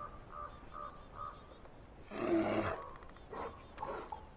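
A run of short, evenly spaced animal calls, a little more than two a second, that stops about a second in. About two seconds in comes a single louder, lower call lasting about half a second, followed by a few fainter calls near the end.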